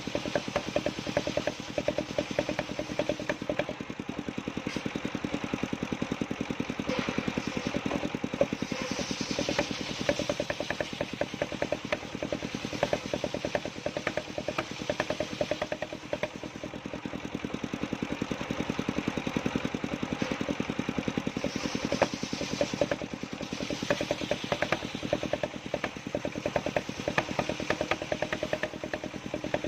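Engine of a portable circular saw mill running steadily with a rapid, even pulsing. A brighter hiss comes and goes in two stretches as the blade cuts through a coconut log.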